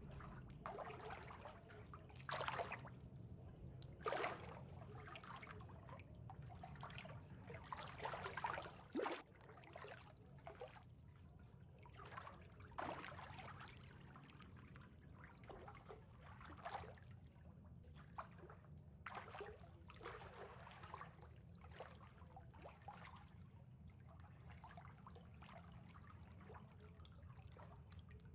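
Faint trickling, lapping water with irregular small splashes, a few of them louder in the first ten seconds, over a low steady hum.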